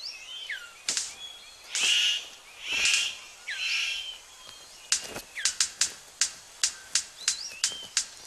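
Male superb bird of paradise in courtship display: a few harsh, buzzy calls, then a rapid run of sharp clicks at about three a second. Thin rising and falling bird whistles sound behind.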